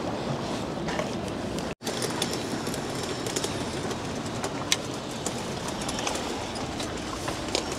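Steady rumble of a passing train with light wheel clicks, broken by a momentary gap about two seconds in. Footsteps on stone paving and steps.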